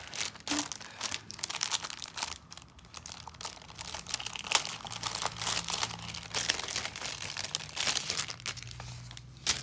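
Clear plastic wrapping and bags crinkling and rustling as they are handled and pulled open by hand, in dense irregular crackles.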